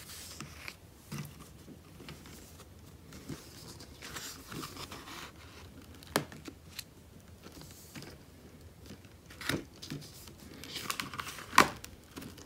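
Pages of thick card in a spiral-bound desk calendar being turned: soft rustling and sliding of the card, with a few sharp taps as pages flip over and settle, the loudest near the end.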